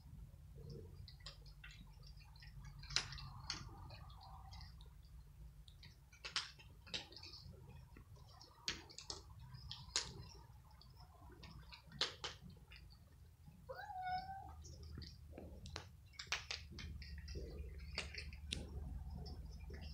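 Several cats crunching dry kibble: many short, irregular crunches and clicks, with one brief meow about two-thirds of the way through.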